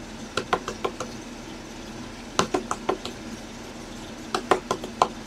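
Computer keyboard typing: short runs of sharp key clicks, three runs a second or two apart, the last run the longest.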